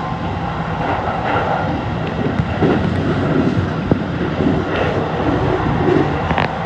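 Electric commuter train running: a steady rumble with a low motor hum, broken by a few sharp clicks and knocks.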